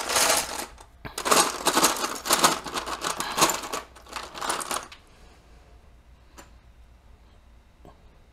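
Loose Lego pieces clattering and rattling against each other and the plastic trays as a hand rummages through a box of parts. The clatter stops about five seconds in, and two single light clicks follow.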